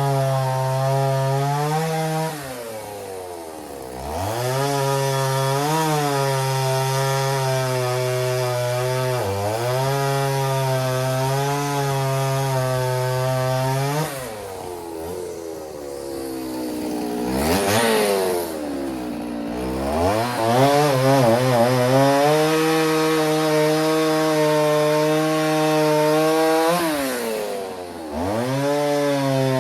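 Stihl two-stroke chainsaw bucking oak logs into firewood rounds, running at full throttle through the cuts. Its engine note drops and revs back up a few times: a couple of seconds in, twice in the middle, and again near the end.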